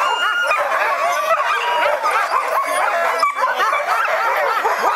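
A yard of sled dogs barking all at once, many calls overlapping without a break. They are excited by the food box being brought out at feeding time.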